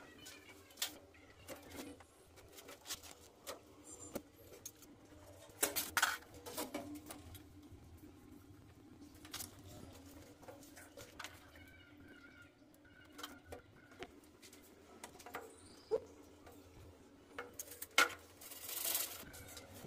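Scattered light clicks and knocks of CPVC pipes and fittings being handled and pushed into place against a wall, with a short scraping sound near the end as a fitting is worked onto a pipe end.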